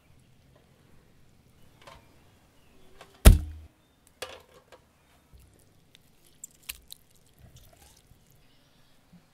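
Metal cookware being handled: one loud clank with a short ring a little over three seconds in, followed by a few lighter clinks and knocks.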